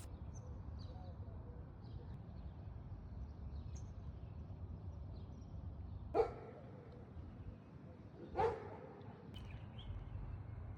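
Two short animal calls about two seconds apart, each a brief pitched cry, over a steady low background rumble.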